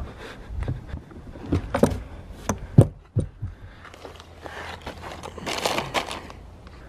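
Plastic bait packages crinkling as a hand shuffles through a bucket full of bagged soft-plastic lures. Before that come a handful of sharp knocks and clicks, from handling on the boat deck.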